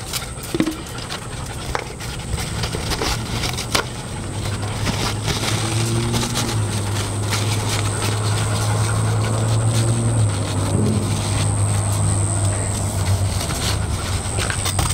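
A steady low engine drone that grows slowly louder, over a thin steady high whine and a few light clicks.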